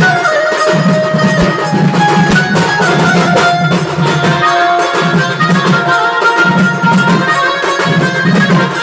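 Singh baja band music: a group of drummers beats out a steady, driving rhythm under a high, wavering melody line.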